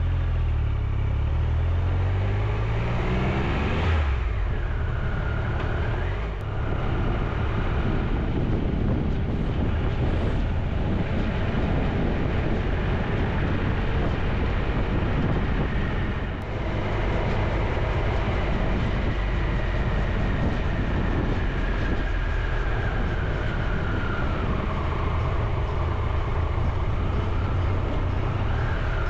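Motorcycle engine and wind rush heard from the moving bike. The engine pitch climbs as it accelerates in the first few seconds, then the bike runs steadily, and the pitch falls gradually near the end as it slows.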